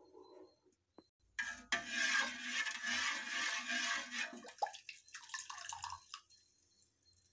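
Water splashing and trickling in a metal pot of boiling water as a spoon stirs it and pours liquid in. The loudest splashing starts about a second and a half in and lasts about three seconds, followed by a few shorter trickles.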